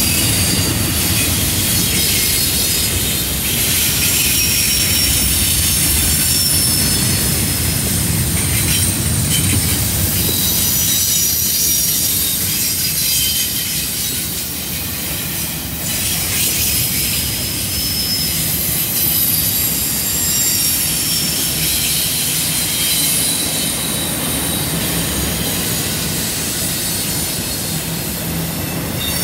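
Double-stack intermodal container well cars rolling past on a curve, their steel wheels squealing against the rail in thin high-pitched tones that come and go, over a steady low rumble of the passing cars.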